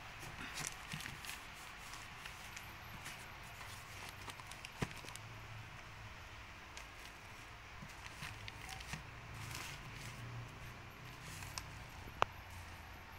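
Faint rustling and crinkling of a plastic-wrapped Kleenex pocket tissue pack and a handbag being handled, with scattered light taps. Two sharp clicks stand out, one about five seconds in and one near the end.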